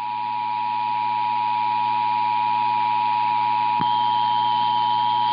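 Emergency Alert System attention tone: one steady, loud tone just under 1 kHz over radio hiss and a low hum, with a faint click about four seconds in.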